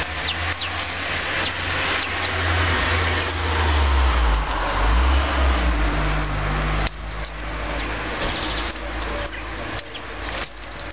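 Low rumble of road traffic, building over the first seven seconds and then dropping away suddenly, with short high chirps of small birds over it.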